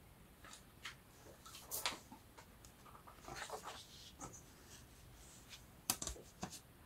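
Sheets of craft paper being handled and sorted: faint rustling and sliding with a few light taps, the sharpest about two seconds in and again around six seconds.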